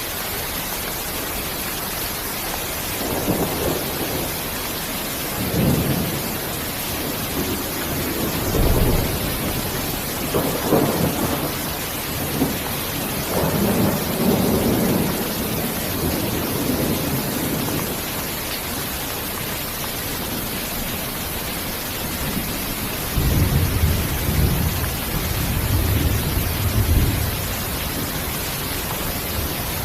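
Steady hiss of heavy rain with rolling thunder: low rumbles swell and fade several times, a long one in the middle and another near the end.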